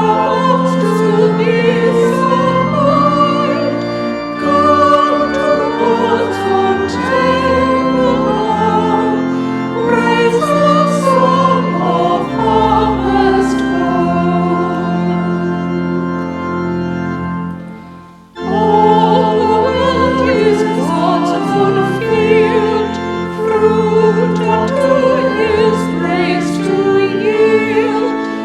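Church choir singing a hymn or anthem over held low organ notes. The music fades and breaks off briefly about 18 seconds in, then starts again.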